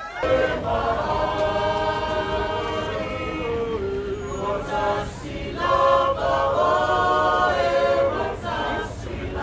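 Several voices singing together in sustained chords, with a short break about five seconds in.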